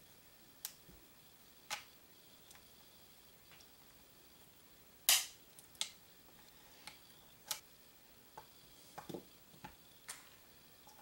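Scattered short, sharp metallic clicks and taps from a lever-action rifle's receiver and parts being handled, the loudest about five seconds in and a few close together near the end.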